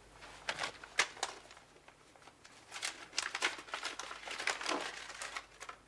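Irregular crinkling and rustling of something being handled, in a run of sharp crackles and clicks that is densest in the second half.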